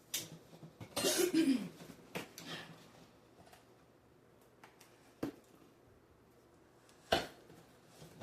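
Toy figure packaging being handled and opened: a louder rustling, tearing stretch about a second in, then several separate sharp clicks and knocks of plastic and cardboard.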